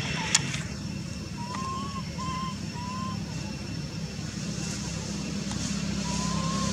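A motor vehicle's engine humming steadily, growing louder near the end as it comes closer, with a few short faint wavering calls over it.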